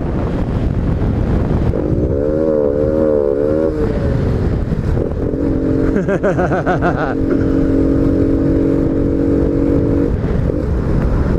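Honda Biz 125 single-cylinder four-stroke scooter-motorcycle with a sport air filter, ridden at speed with heavy wind rush on the microphone. Its engine note wavers up and down about two seconds in, then holds a steady note for about five seconds.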